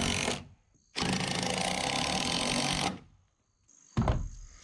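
DeWalt cordless drill driving screws through 2x4 blocking into a wooden roof truss: one screw finishes about half a second in, and a second is run in for about two seconds before the motor stops. A short knock follows near the end.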